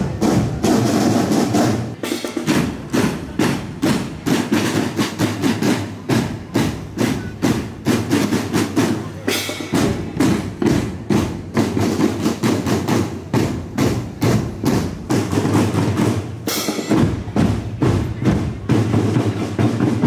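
Marching drum band playing a steady beat of sharp drum strikes.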